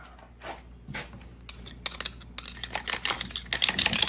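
Irregular light clicks and knocks, sparse at first and then coming in a quick run from about a second and a half in.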